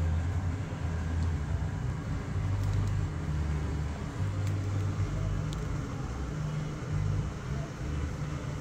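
Low, uneven outdoor rumble with a faint hiss above it and no distinct events.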